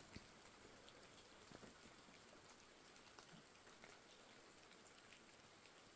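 Faint light rain falling, an even patter with scattered soft drips.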